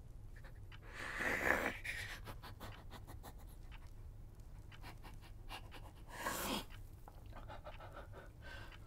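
A man's heavy breaths: two loud, noisy exhales, about a second in and about six seconds in, with his face in his hands.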